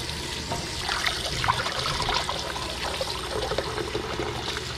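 Kitchen tap running into a stainless-steel sink as fish fillets are rinsed by hand in a glass bowl of water, with small splashes and trickles throughout.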